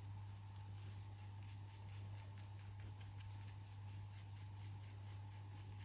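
Paintbrush stroking wet matte medium over a python skin on artboard: soft, quick brushing strokes, several a second, starting about a second in, over a steady low hum.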